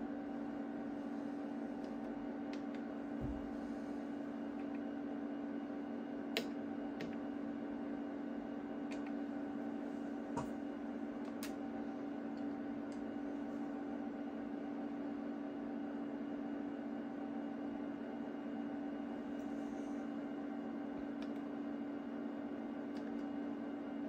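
Steady hum of the cooling fans in a stack of HP microwave test instruments running, with a few sharp clicks as front-panel keys are pressed.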